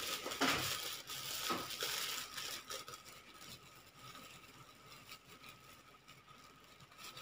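Plastic bag of wheat flour crinkling as it is handled and opened, with a few sharp crackles in the first two seconds or so. The flour is then tipped from the bag into a steel pot, and the sound drops to a quieter rustling.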